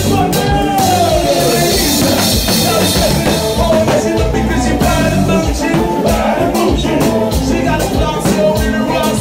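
Haitian konpa band music with a singing voice over a steady drum-kit beat.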